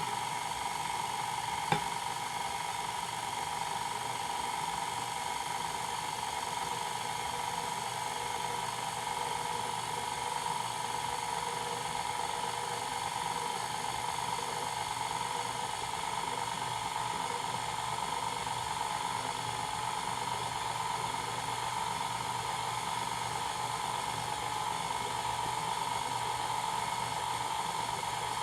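KitchenAid 4.5-quart stand mixer running steadily with its paddle beater, mixing flour into cookie dough: a steady motor whine with a single sharp click about two seconds in.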